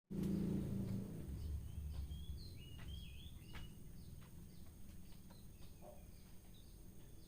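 Small caged birds chirping: many short, high chirps, with a few faint clicks. A low rumble is loudest in the first second or so and then fades.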